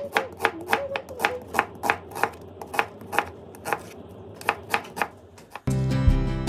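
Kitchen knife slicing an onion on a wooden cutting board: a steady run of sharp chops, about three a second. Guitar music comes in near the end.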